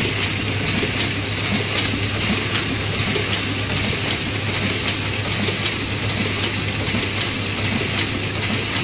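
Chinese Zhongye sheet-fed offset printing press running steadily as it feeds and prints paper sheets. It makes a continuous mechanical noise over a low steady hum.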